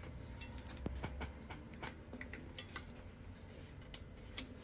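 Light plastic clicks and taps from the parts of a Ricoh MP 401/402 printer drum unit being handled and fitted together. There are about five scattered clicks, the sharpest near the end.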